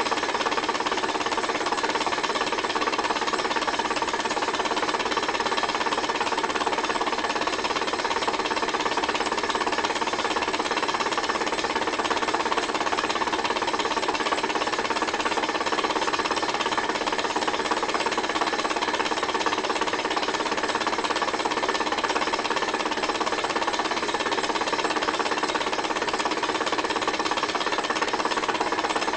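Wilesco H110 model Stirling hot-air engine running steadily at speed, a fast, even mechanical rattle from its piston, connecting rods and flywheel.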